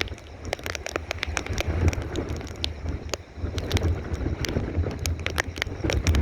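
Strong gusting wind buffeting the microphone over the rush of sea waves before a typhoon. Many sharp clicks and crackles are scattered throughout.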